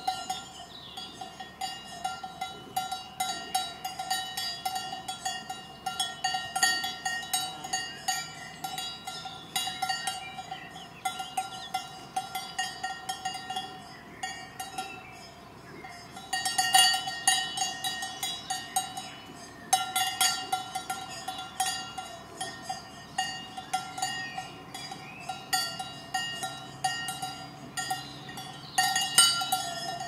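Several cowbells worn by cows clank irregularly and keep ringing as the animals move their heads. There are louder flurries of clanging about halfway through and again near the end.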